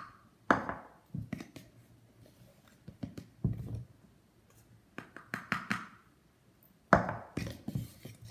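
Measuring cup scooping and scraping cornstarch out of its container, in about five short bursts of scrapes and knocks with pauses between.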